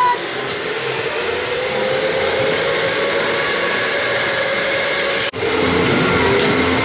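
Steady whirring of electric go-karts running on an indoor track, with a faint whine that slowly rises and falls. The sound breaks off sharply for an instant about five seconds in, then steady whirring resumes.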